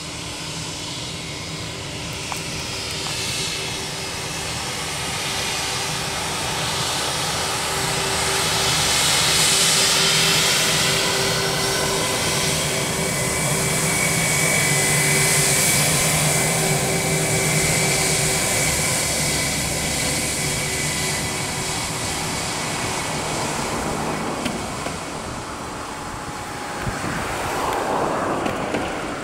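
Engines of an Air Serbia Airbus A320-family jet taxiing past at low power: a steady high whine and a lower hum over a broad jet rush. It grows louder as the aircraft passes, then eases off as it moves away, with a brief swell of rushing noise near the end.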